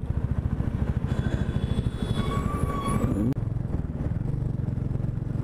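Motorcycle engine running under way in city traffic, a fast, regular low beat. About two seconds in there is a brief high tone from the surrounding traffic, and the sound changes slightly at a cut near the middle.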